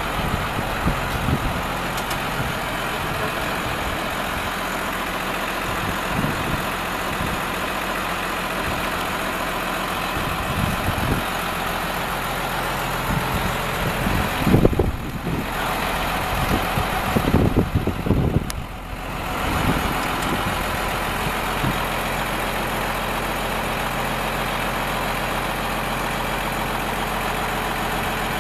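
Large farm tractor's diesel engine idling steadily. A few loud low buffets hit the microphone around the middle.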